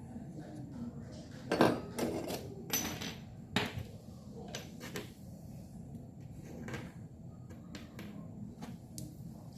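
Irregular knocks and clinks of hard objects being handled on a workbench, a dozen or so separate strikes, loudest in the first few seconds, over a low steady background hum.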